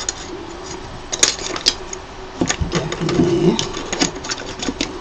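Irregular clicks and taps of plastic parts and a ribbon cable being handled inside a Creality Halot Mage Pro resin printer while its replacement LCD screen is fitted.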